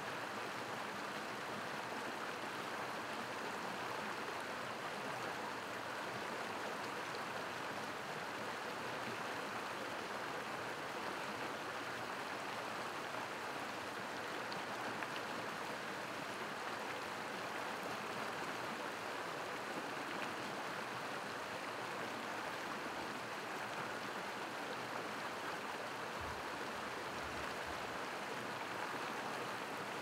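A creek running full, with a steady rush of water spilling over small drops.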